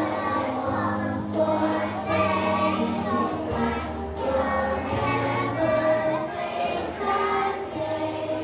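A group of children singing a song together in unison, over a steady instrumental accompaniment.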